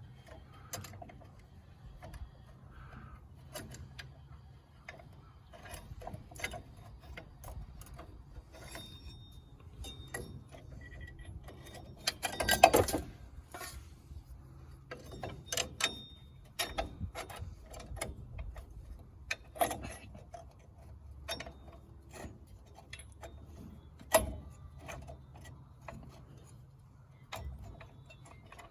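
Irregular metallic clicks, clinks and scrapes of rear drum-brake hardware (return springs, shoes and adjuster) and hand tools being worked on a 1989 Dodge Dakota, with a louder clatter about twelve seconds in. A low steady hum sits underneath.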